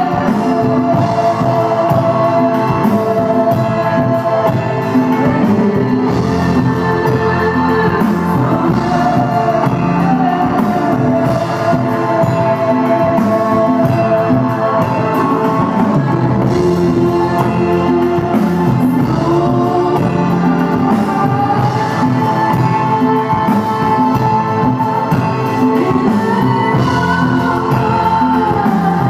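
Live band music: a female singer's long, sliding sung notes over electronic keyboards and drums, loud and steady throughout.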